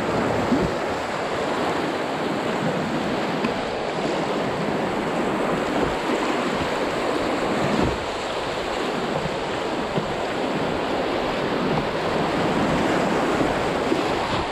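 White-water rapids rushing steadily around an open canoe as it runs down a rocky river.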